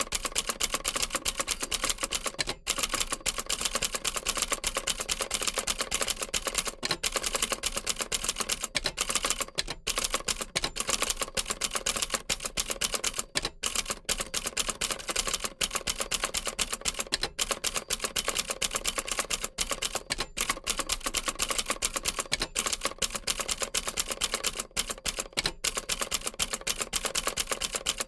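Old typewriter typing steadily: a fast, continuous run of key clacks, broken only by a few brief pauses.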